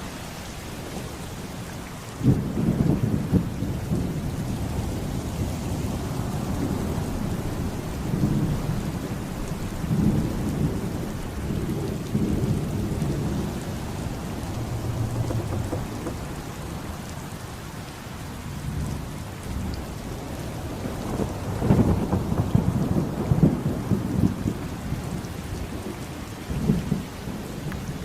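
Steady heavy rain with rolling thunder: a rumble breaks in suddenly about two seconds in, keeps rolling on and off, and swells to its loudest rumbling a little past the twenty-second mark.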